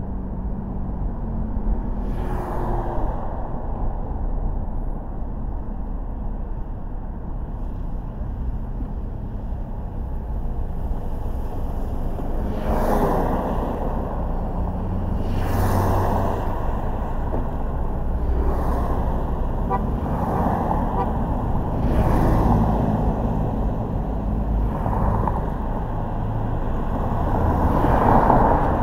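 Car driving through city traffic: a steady low rumble of engine and tyres on the road, with other vehicles swishing past about seven times.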